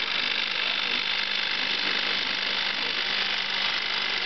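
LOMO Ukraine-7 16mm film projector running steadily through a test run: an even mechanical whir from its film-transport mechanism, with a steady low hum underneath.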